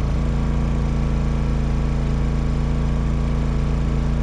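A small engine running steadily at one constant speed, an even hum with no change in pitch.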